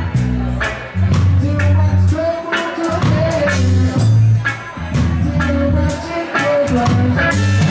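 Live reggae band playing: electric guitar, electric bass and drum kit, with regular cymbal hits over a deep bass line.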